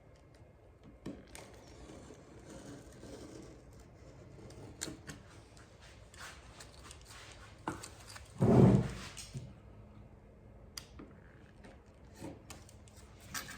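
Birch bark strips being cut and handled: quiet scraping and rustling with scattered small clicks, and one dull thud about eight and a half seconds in.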